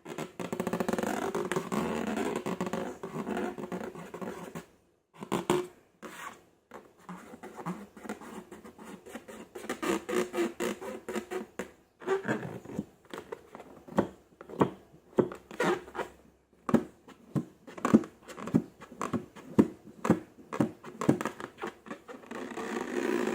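Slime being squished and worked by hand: wet, sticky clicks and pops. About halfway through, these settle into separate pops roughly twice a second.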